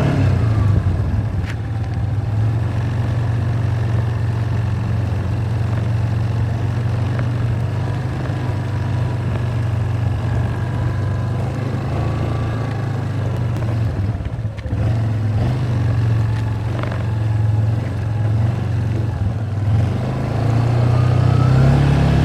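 ATV engine running steadily under way, with a brief dip about fourteen seconds in and the engine note rising near the end.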